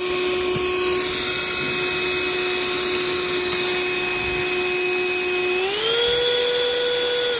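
Cordless handheld vacuum cleaner's motor running with a steady high whine, rising in pitch about six seconds in and holding there.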